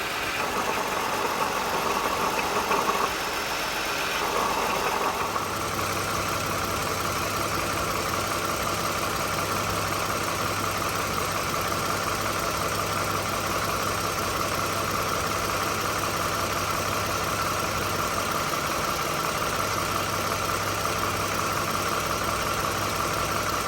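2013 Toyota Sienna V6 engine idling with a steady high whine over the running, the noise of a failing water pump and idler pulley. About five seconds in, a low steady hum joins it.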